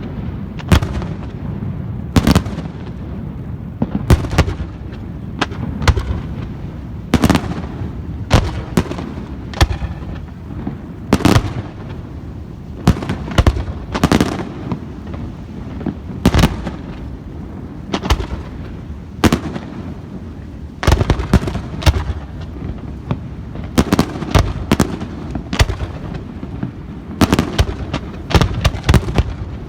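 Aerial fireworks bursting: a run of sharp bangs, single and in quick clusters, over a steady low rumble of echoing detonations.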